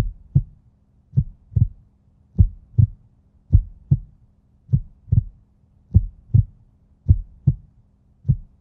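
Heartbeat sound effect: a steady lub-dub of paired low thumps, a new pair about every 1.2 seconds, over a faint low hum.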